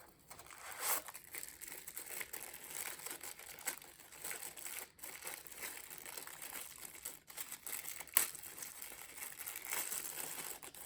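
Packaging being crinkled and unwrapped from a threaded extension ring, an uneven run of crackles and rustling.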